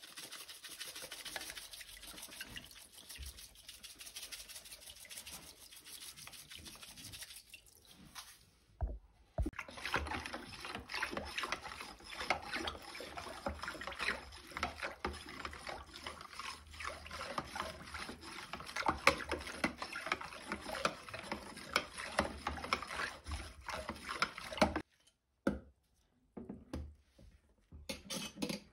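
Salt water in a plastic tub being stirred with a metal rod: water sloshing and swirling, with many small clicks and scrapes where the rod rubs against the tub. The stirring stops about 25 seconds in, and there is a brief splash or knock near the end.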